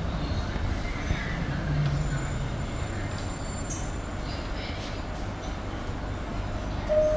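Cabin noise of a Bombardier Innovia APM 100 C801A people mover running along its guideway on rubber tyres: a steady rumble and hum. Near the end a single clear chime note sounds, with a lower note right after it.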